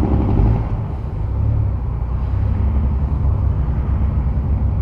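Honda Goldwing 1500's flat-six engine running steadily at road speed, a low hum under wind and road noise on the microphone.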